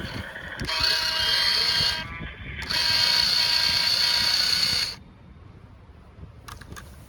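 Electric motor and plastic gearbox of a toy RC monster truck whining at speed in two runs, the first about a second and a half long and the second about two seconds, with a short pause between them. After the second run the motor stops and only a few faint clicks remain.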